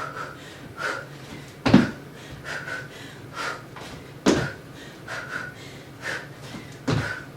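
A woman's hard breathing during a jumping workout, with three heavy thuds of feet landing on the floor from squat jumps, about every two and a half seconds.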